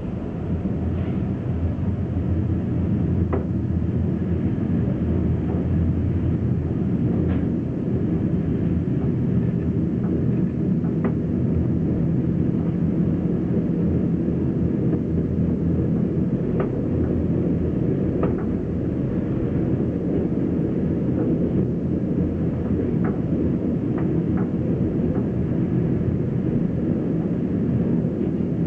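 Running noise heard inside a passenger train pulling out of a station: a steady low rumble of wheels and running gear that swells in the first second and then holds, with scattered short clicks from the track.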